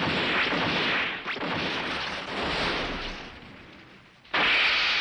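Cartoon battle sound effects: a loud rushing blast that dies away over about three seconds, then another blast that starts suddenly near the end.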